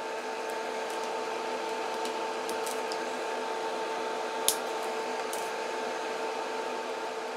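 Electric nail drill (e-file) running at a steady speed with a constant whine, taking old gel off a nail; one short click about four and a half seconds in.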